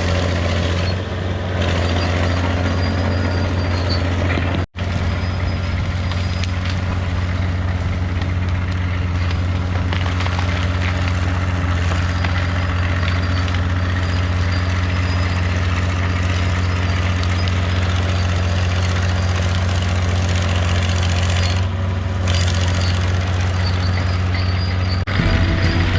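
Fiat-Allis 14B crawler dozer's diesel engine running steadily with a deep, constant drone while clearing, breaking off for an instant about five seconds in.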